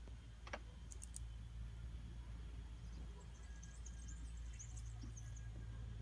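Quiet ambience: a steady low hum, two or three sharp clicks in the first second, and faint high chirping through the middle.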